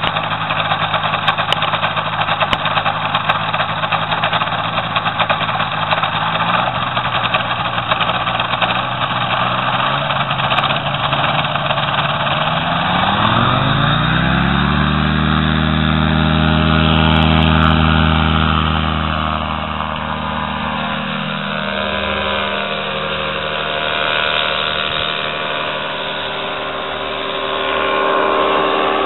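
Powered paraglider trike's engine and caged propeller idling, then throttled up about thirteen seconds in, the pitch rising to a steady full-power note for the takeoff run. Later the note grows weaker and wavers in level as the trike climbs away.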